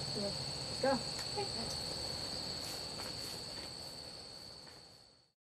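Steady high-pitched insect chorus, with a couple of short voice sounds in the first second; everything fades out to silence near the end.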